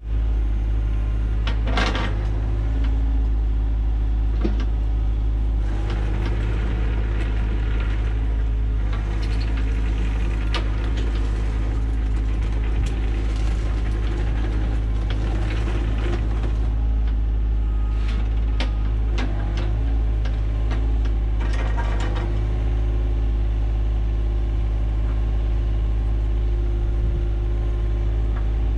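John Deere 35G mini excavator's diesel engine running steadily under load, with scattered clanks and scrapes from the bucket working soil as it backfills over a drain pipe.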